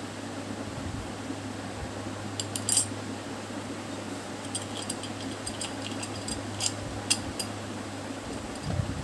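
Light glass clinks and taps as the glass shade of a ceiling light is handled and fitted: a few about two and a half seconds in, then a scattered run over the next three seconds, over a steady hum.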